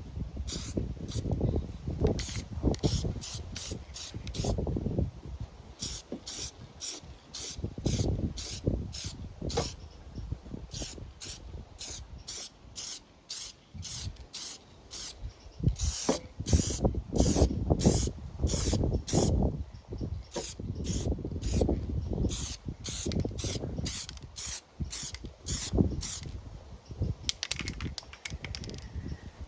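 Aerosol spray-paint can hissing in many short bursts, about two a second with brief pauses, as a light coat goes on a metal lawn mower deck. Wind buffets the microphone underneath.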